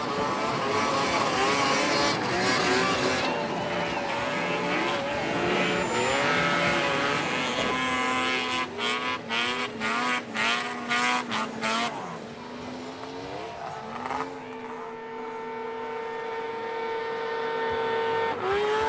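Snowmobile engines revving, several at once, their pitch sliding up and down, with a stretch of quick stabs of throttle in the middle. Near the end one sled holds a steady high engine note that grows louder.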